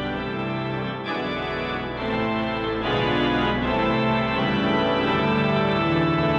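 Church organ played from a three-manual console: sustained full chords with deep pedal bass. It gets louder about two seconds in and again about a second later.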